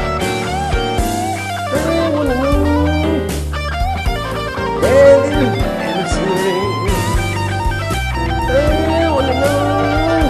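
Instrumental break in a soul-jazz band arrangement: an electric guitar plays a lead line with bent notes over bass and drums.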